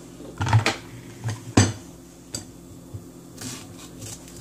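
A handful of sharp clinks and knocks from a metal spoon and a kitchen knife being set down on a countertop and a wooden cutting board. The loudest knock comes about one and a half seconds in.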